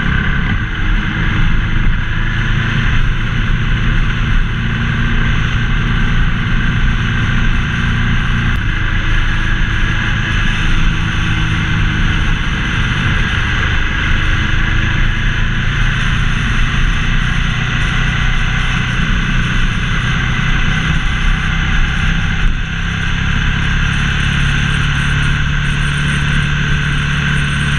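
Ducati ST4S's V-twin engine running steadily under way, heard from the moving motorcycle along with dense rushing noise. About three-quarters of the way through the level dips briefly and the engine note settles.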